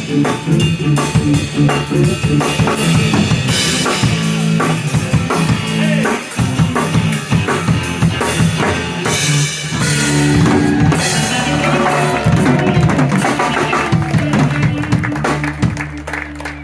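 Live blues band playing, with a drum kit prominent over bass and other instruments.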